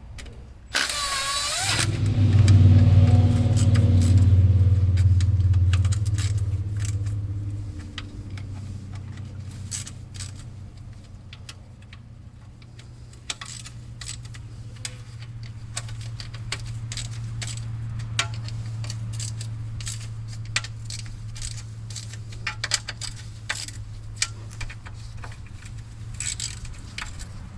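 A power tool whirs briefly about a second in. Then a machine starts up with a loud, low, steady hum that eases to a lower steady drone after about five seconds, with scattered metallic clinks of tools over it.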